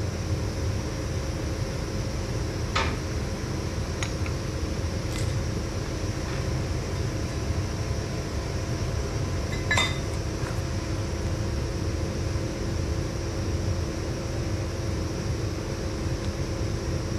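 Steady machinery hum with a low rumble and several held tones, with a few light clinks, the clearest a ringing metallic clink about ten seconds in.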